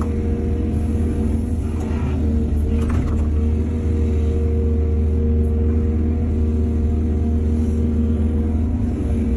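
Excavator's diesel engine running steadily under load, a deep drone with a couple of brief clatters about two and three seconds in.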